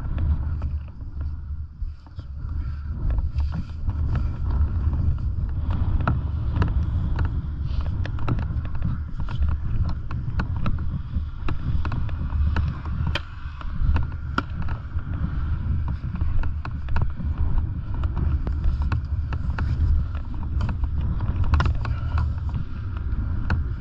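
Snowmobile engine running steadily with a low rumble, under wind buffeting and scattered knocks and clicks at the microphone.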